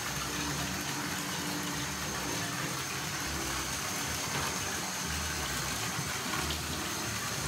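Steady rush of running water from a handheld shower sprayer splashing into a bathtub and over trombone slide tubes being rinsed.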